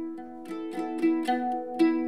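Mandolin played live: a run of plucked notes, several a second, each ringing on under the next.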